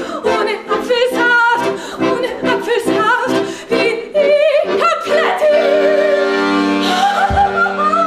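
A woman singing with a wide vibrato to her own piano accordion; about five seconds in the voice settles into long held notes over steady sustained accordion chords.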